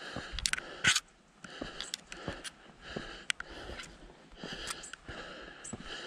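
Footsteps crunching on a dirt and stone trail at a steady walking pace, with the hiker's breathing, and one sharp scrape a little under a second in.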